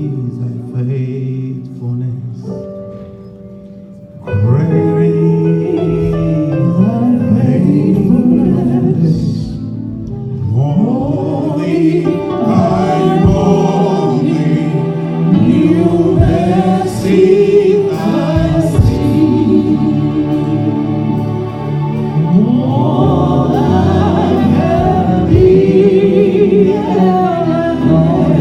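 Gospel music: a choir singing with instrumental backing. Soft instrumental notes open it, and the singing comes in loudly about four seconds in.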